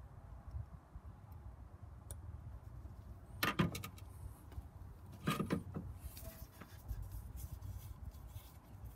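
Handling noises from plastic and rubber engine-bay hose fittings: a few short knocks and clicks about three and a half seconds in and again after five seconds, over a low steady rumble.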